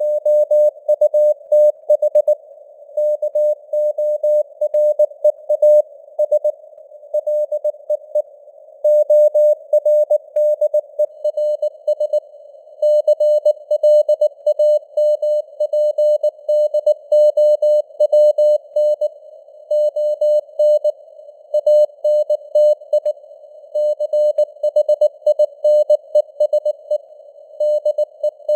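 Morse code at 19 words per minute: a single mid-pitched beep keyed on and off in fast dits and dahs, with short gaps between letters and longer ones between words, over a faint simulated radio hiss.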